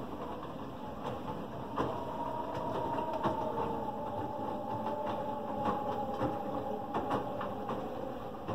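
Samsung WW4000 front-loading washing machine tumbling wet laundry in its drum: a quiet motor whine that comes in about two seconds in and eases off near the end as the drum stops, with soft knocks of clothes dropping inside the drum. The machine runs with very little noise.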